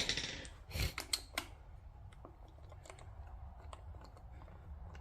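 Light metallic clicks and clinks of hand tools, a wrench or socket working the water pump pulley bolts of a Buick turbo V6: a cluster of sharp clicks about a second in, then only faint scattered ticks.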